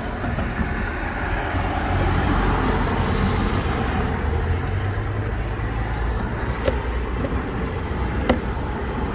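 Steady low rumble of vehicle traffic, with a couple of short sharp clicks over it later on.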